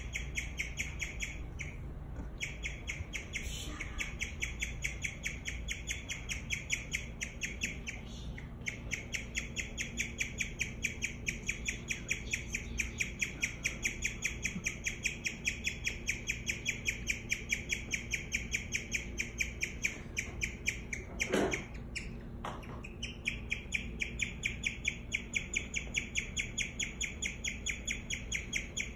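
Guinea pig chirping: a long run of rapid, bird-like high chirps, about four or five a second, with a few brief breaks. A single knock about two-thirds of the way through is the loudest sound.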